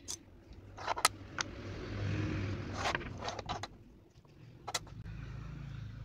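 Okey tiles clicking against each other and a plastic tile rack as they are picked up and set in place: several sharp clicks, with a short sliding rustle about two seconds in. A low hum underneath near the end.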